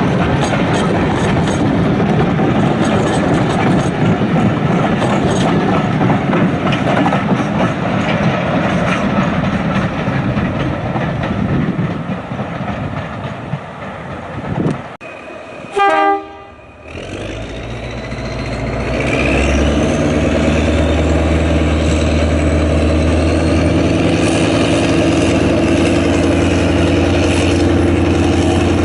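Heritage diesel locomotives. A train rumbles past with rail clicks, then fades. About 16 s in there is a short horn blast. A locomotive's diesel engine then runs loud and steady with a rising whine as it powers up.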